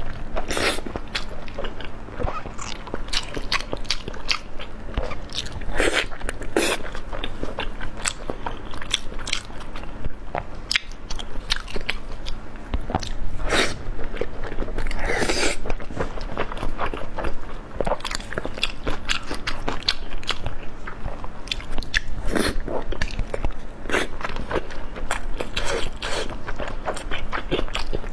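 Biting and chewing crispy pork skin rolls, with many sharp, irregular crunches.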